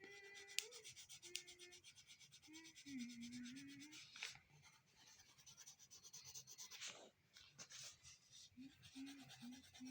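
Faint, rapid scratching of colouring strokes rubbing back and forth on paper.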